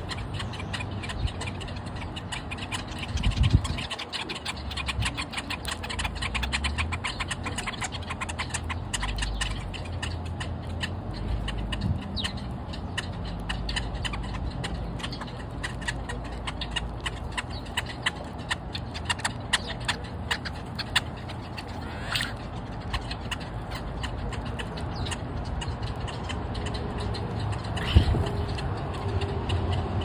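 A flock of Brewer's blackbirds, European starlings and sparrows feeding right beside the microphone: a dense run of quick, sharp pecking taps on pavement that thins out in the later part, over a low rumble, with one louder knock near the end.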